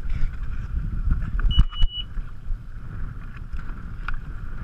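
A jet ski's electronics give one steady high beep lasting about half a second, about a second and a half in, with a couple of sharp clicks beside it. Underneath runs a low rumble of wind and water.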